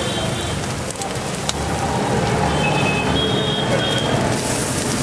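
Egg frying on a hot flat iron griddle, a steady sizzle, with street traffic noise behind it.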